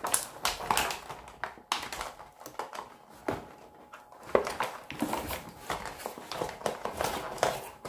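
Clear plastic wrapping crinkling as it is handled and pulled off, with irregular small clicks and taps.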